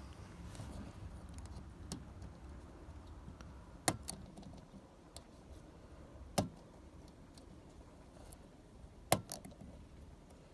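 Small metallic clicks and ticks of a Lishi pick working the wafers inside a 2001 Ford Mustang's door lock, with four sharper clicks a few seconds apart among fainter ticks.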